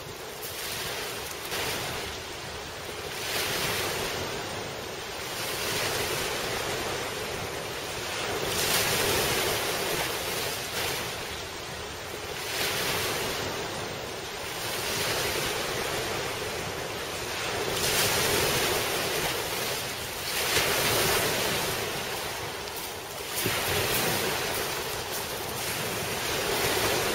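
Sea surf breaking and washing up a pebble beach, the noise swelling and fading every few seconds as each wave comes in.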